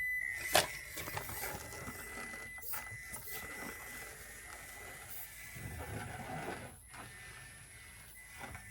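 A small electric motor and gears whirring, with a steady high whine and a sharp click about half a second in.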